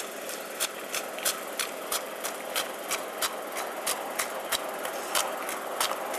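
Running footsteps at an even pace, sharp footfalls about three a second, over a steady rushing background noise.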